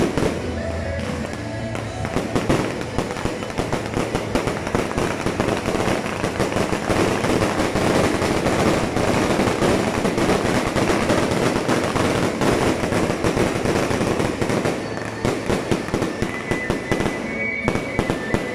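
Aerial fireworks bursting overhead in a dense, continuous crackle of rapid pops, thinning out near the end.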